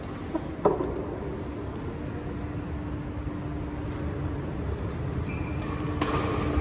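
Badminton rally: a sharp racket-on-shuttlecock hit about half a second in and another near the end, over the steady hum of a large sports hall. Short high squeaks, typical of shoes on the court mat, come in just before the second hit.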